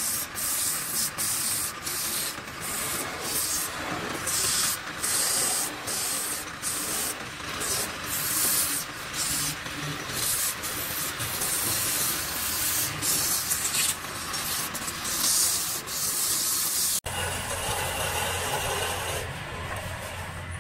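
Sandpaper pressed against a spinning turned workpiece on a wood lathe: a rasping hiss that keeps breaking off briefly as the paper is eased off and pressed on again. About 17 seconds in the sound changes abruptly to softer rubbing over a steady low hum.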